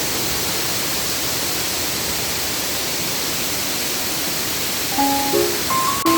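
Waterfall rushing steadily. Near the end, a short melody of piano-like background music comes in over it.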